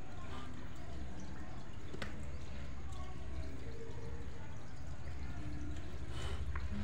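Wet, dripping sounds of soapy shoes being rubbed clean by hand, over a steady low background hum.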